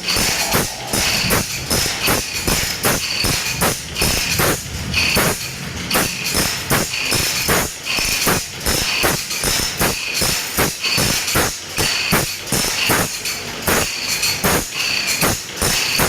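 Hand file rasping across the teeth of a saw in quick, even strokes, about three a second: the saw being sharpened by hand.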